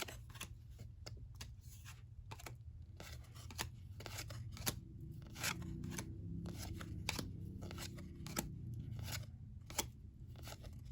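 Freshly opened basketball trading cards being thumbed through one at a time, each card sliding off the stack with a crisp snap, about two or three a second. A low steady hum runs underneath.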